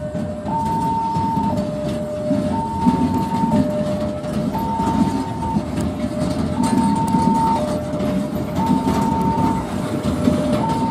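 Level-crossing warning alarm sounding a repeated two-tone high–low signal, each tone about a second long. Under it, a string of loaded ballast hopper wagons rumbles and clatters slowly over the rails.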